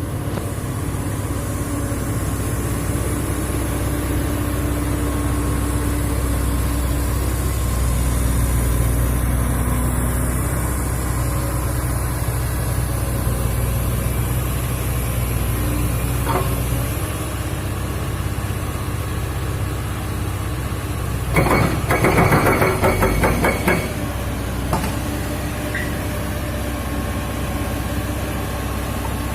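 Heavy excavator's diesel engine running steadily. About two-thirds of the way through comes a couple of seconds of rapid, clattering impacts, as of the machine working against rock.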